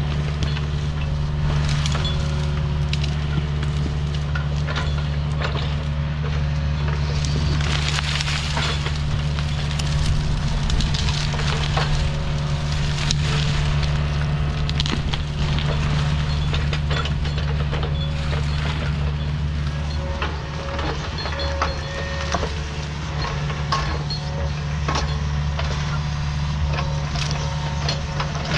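Excavator engine running steadily under load while its rake tears through brush and small trees, with branches and vines cracking and snapping over it, busiest for a stretch in the middle.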